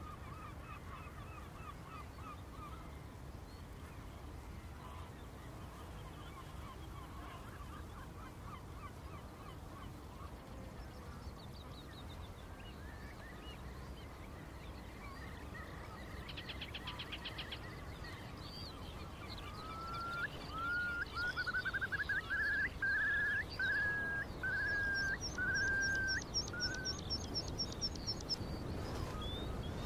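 Wadden Sea mudflat ambience: a flock of water birds and shorebirds calling. A steady scatter of short calls builds to a louder run of about ten quick calls in the second half, with higher calls over it near the end, all above a low, even rush of wind or water.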